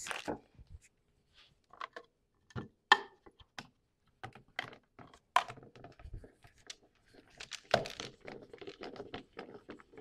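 Plastic rotary drum cheese grater being handled and worked: irregular clicks and knocks, becoming a denser run of clicking and rattling in the last couple of seconds as sharp cheddar is shredded through the drum.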